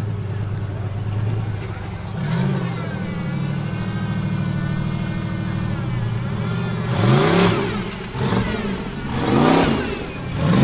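Formula offroad buggy's engine running hard at high, steady revs as it climbs a steep dirt slope. In the last few seconds it revs sharply up and down about three times while the tyres spin in the loose dirt.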